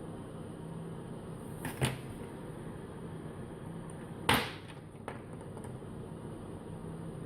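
Two sharp knocks at a microsoldering bench, about two and four seconds in, the second louder, with a faint click just after, over a steady hum and hiss.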